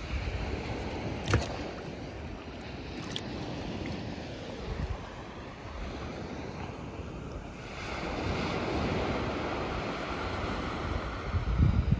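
Surf breaking on a sandy beach, with wind buffeting the microphone. A sharp click comes about a second in, and there are a few low thumps near the end.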